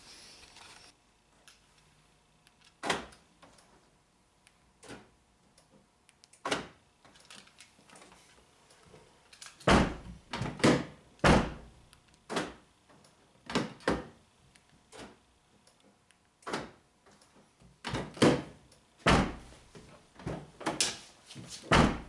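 A run of sharp clunks and clicks, a few scattered at first and then about a dozen close together in the second half, several in quick pairs. These are a 2003 Honda Civic's power door locks being cycled with the key fob, with the rear door handle pulled to check them, the rear door lock actuator newly replaced.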